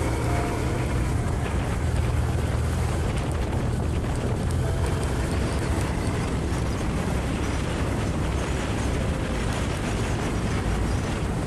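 Honda Transalp motorcycle engine running steadily under way on a dirt track, with wind noise over the microphone.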